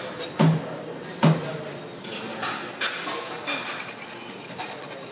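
Small metal hopper pans and utensils clanking: two sharp knocks with a short ring, about half a second and a second and a quarter in, then a lighter knock and scattered clinks of metal.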